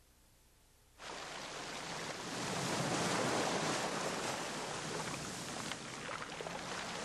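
Ocean surf breaking on a rocky shore, a steady rushing wash that starts suddenly about a second in and swells over the next two seconds.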